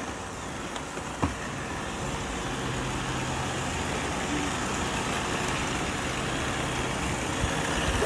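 A single thump about a second in, then several robot vacuums running together: a steady low motor hum that sets in about two seconds in and holds.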